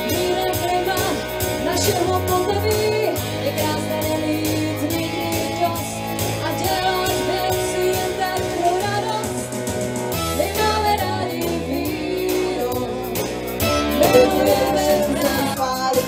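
Live band music: women singing a melody over a keyboard, with sustained bass notes and a steady beat of a drum pattern.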